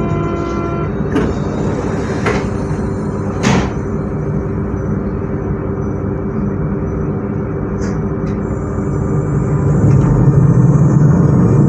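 Z 20500-series (Z2N) double-deck electric multiple unit standing with its equipment humming steadily, with a few sharp knocks in the first few seconds. Near the end the low hum swells and rising tones come in as its traction equipment starts up to pull away.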